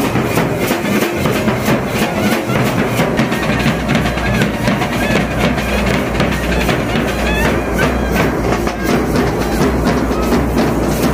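Street band of bass drums and snare drums playing a fast, dense beat, with a clarinet playing a melody over it.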